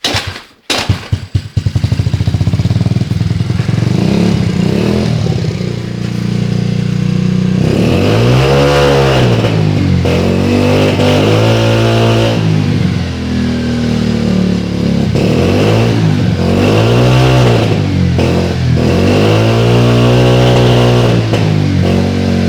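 Yiying moped scooter's small single-cylinder engine sputtering into life, then idling. About eight seconds in it is revved up and back down about four times. It runs a bit rich, which the owner puts down to the wrong carburettor jet.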